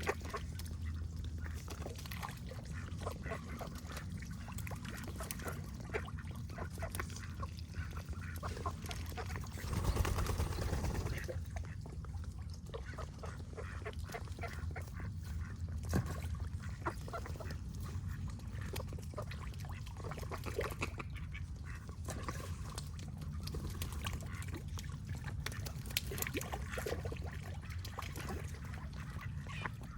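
Duck quacking, short calls repeated again and again over a steady low background, with a louder stretch about ten seconds in.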